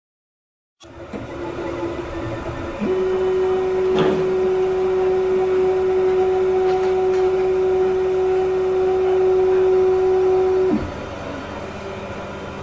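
3D printer running mid-print, its motors giving a steady whine at one pitch for about eight seconds before it drops away, over the printer's running noise, with a single click partway through.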